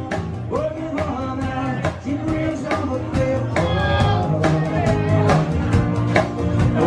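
Live acoustic rock band playing: a male voice singing over strummed acoustic guitar and a drum kit keeping a steady beat with cymbals.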